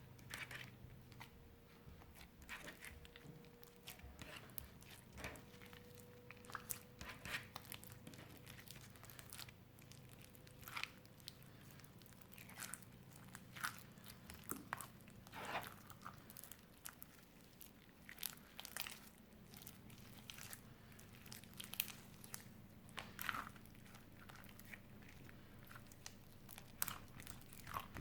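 Hands working clear slime mixed with crushed eyeshadow, giving faint, irregular crackles and squishes.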